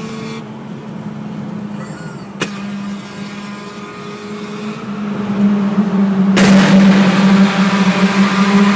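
Zastava Yugo 65's four-cylinder engine running, with one sharp backfire crack about two and a half seconds in. From about six seconds in the engine gets markedly louder as it pulls harder.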